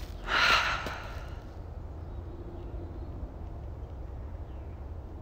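A person's long breath out, a sigh, close to the microphone about half a second in, then quiet with only a low steady rumble.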